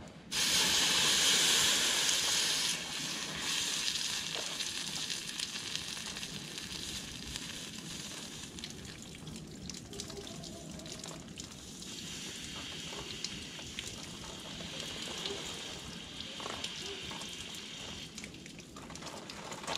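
Water poured from a plastic bottle onto a torch-heated steel tractor lift arm, hissing and sizzling as it boils off the hot metal. The hiss starts abruptly, is loudest for the first few seconds, then goes on more softly and unevenly as the metal cools.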